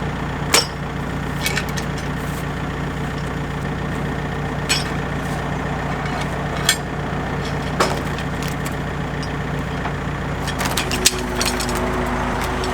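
Norwood LumberPro HD36 portable bandsaw mill's gas engine running steadily, with a few sharp ticks scattered through it and a faint higher steady tone joining near the end.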